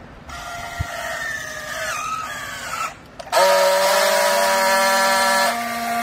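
Battery-powered handheld strapping tool running its motor on plastic bale strap in two goes: a whine of about two and a half seconds that sags slightly in pitch as the strap is pulled tight, then after a short pause a louder, steady whine for about two seconds, as the tool tensions and then seals the strap.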